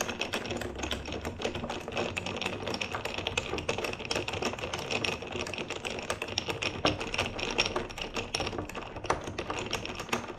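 A spoon stirring milk and coffee in a tall glass, clinking rapidly and unevenly against the glass.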